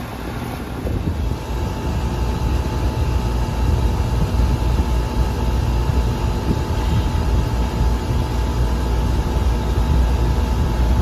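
Air-conditioning condensing unit running: the compressor hums with the condenser fan, a steady drone that grows a little louder over the first couple of seconds. It is running at high head pressure because the condenser coil is plugged with dirt.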